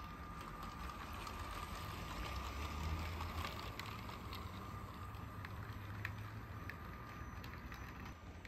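Motorised Lego train running along plastic Lego track: a steady motor whine over a low rumble, with a few sharp clicks from the wheels on the track in the middle of the run.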